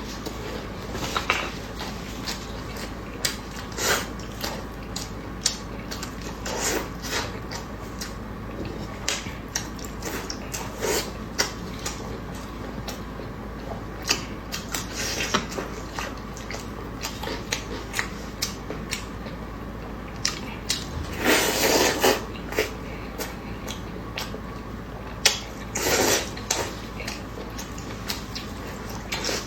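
Close eating sounds: chopsticks and utensils clicking against dishes again and again, with chewing and longer rustling bursts of handling food about two-thirds of the way in.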